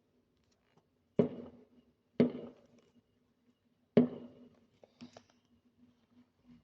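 Three firework bangs, about a second in, about two seconds in and about four seconds in, each sharp with a short fading echo, over a faint steady hum.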